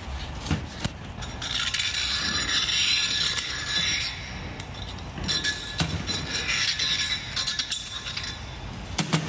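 Hand sanding on a metal brake part, a scratchy rubbing in stretches of a couple of seconds, as the burr is taken off, with light metallic clinks and a couple of knocks near the end.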